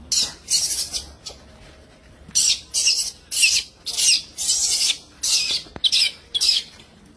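Infant macaque screaming in distress: a run of about ten short, shrill squeals with a brief pause about a second in.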